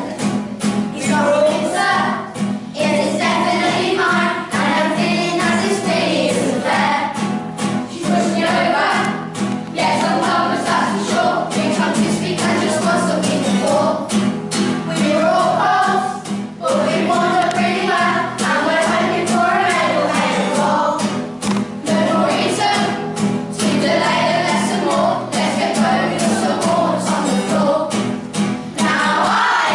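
A choir of primary-school children singing a song together, with instrumental accompaniment.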